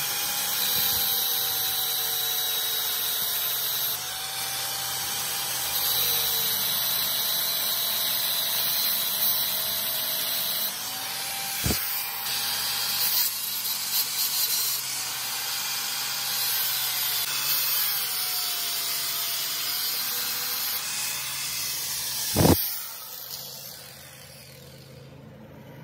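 Angle grinder with a thin cutting disc cutting into the teeth of a steel chain sprocket held in a vise: a steady hiss of disc on metal, with the motor's pitch sagging and recovering under load. A sharp knock comes about halfway, another near the end, and then the grinder winds down.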